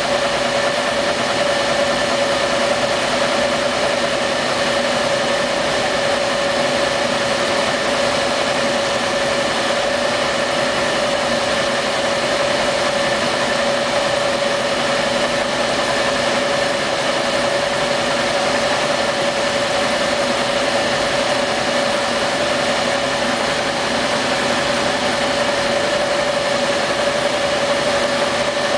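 Laser engraver running while it engraves a laptop lid, its head sweeping back and forth: a steady mechanical hum with one strong steady tone.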